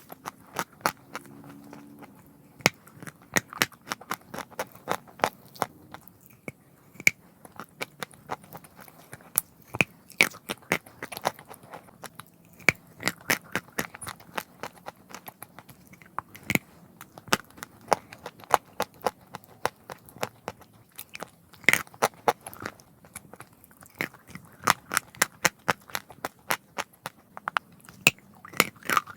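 A person chewing chalk: a long run of sharp, crunching cracks, several a second, with short pauses between bouts.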